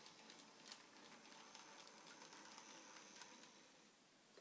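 Faint, steady high whine of an N gauge model locomotive's small motor, with a few light clicks of wheels over the track as a freight wagon is shunted; the whine stops shortly before the end.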